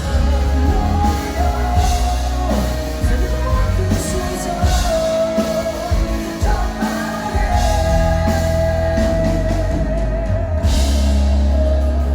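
Rock song with a singer holding long, wavering notes over electric guitar, bass and drum kit.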